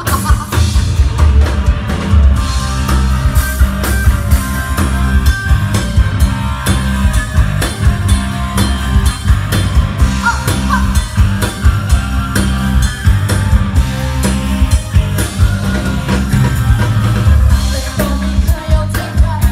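Live rock band playing loud through a club PA: drum kit keeping a steady beat under bass, electric guitar and keyboard.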